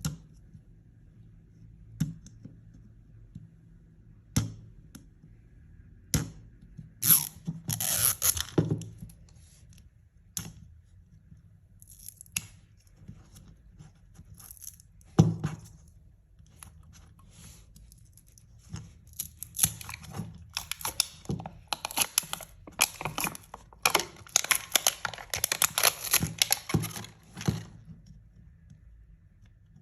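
Plastic wrapping of a Mini Brands surprise capsule being torn open and crinkled by hand, with scattered clicks and one sharp knock. It comes in two spells of tearing and crackling: a short one about a quarter of the way in, and a long, dense one through the second half.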